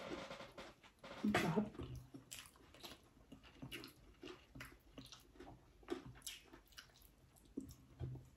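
Quiet eating sounds: chewing with soft mouth clicks and smacks scattered through, and one louder short sound about a second and a half in.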